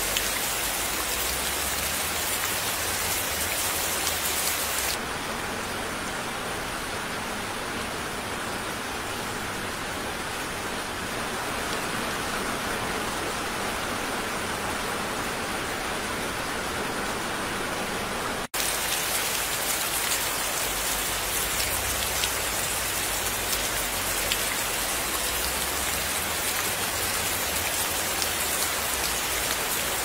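Steady rain falling, spliced from separate recordings. About five seconds in it turns duller as the high hiss drops away. A little past halfway it cuts out for an instant and comes back brighter.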